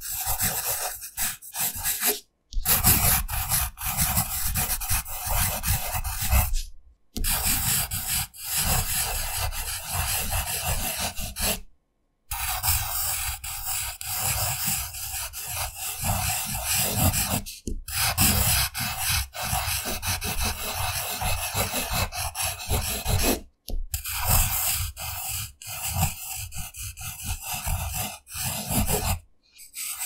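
Handwriting on paper: a writing tip scratching busily across the page in stretches of about five seconds, each broken off by a brief silence.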